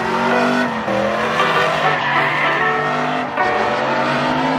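Pickup truck doing burnout donuts: the engine is held at high revs while the rear tyres spin, squealing and skidding on the pavement, with the pitch drifting slightly up and down.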